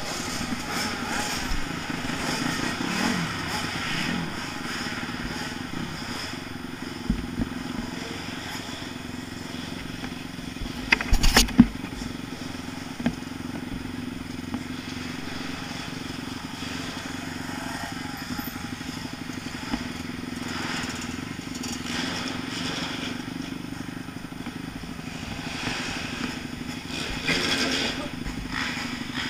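Motocross bike engine running steadily at low revs while ridden slowly. A few sharp knocks come about eleven seconds in, and the engine stops at the very end.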